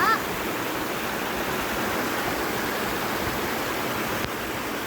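Rushing river water tumbling over a waterfall: a steady, even hiss of flowing water. A short pitched sound, like a brief call or voice, is heard at the very start.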